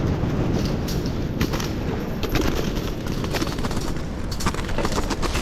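Feral pigeons flapping as they are netted, a scattered run of sharp wing claps and clatters that grows busier near the end, over a steady low rumble.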